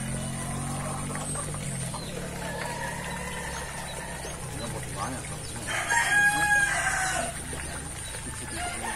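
A rooster crowing once, about six seconds in, one call of about a second and a half.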